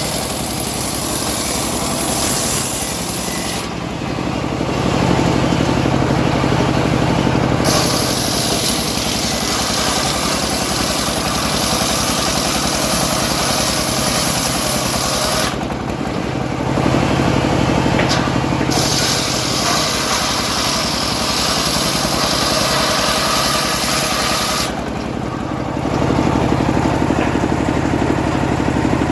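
Home-built engine-driven sawmill running while sawing teak, a steady engine drone under the hiss of the blade in the wood. Three times the cutting hiss drops away for a few seconds, leaving the engine's low note on its own.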